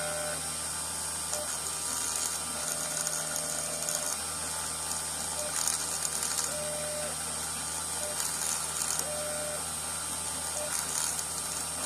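CNC 2417 mini milling machine cutting copper: the spindle motor runs with a steady high whine over a low hum, the stepper motors sound short tones several times as the axes move, and the cutter scratches against the metal.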